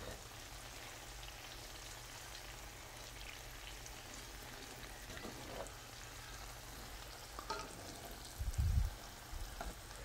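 Banana cue bananas frying in hot oil in a nonstick pan: a steady, even sizzle. A dull low thump comes near the end.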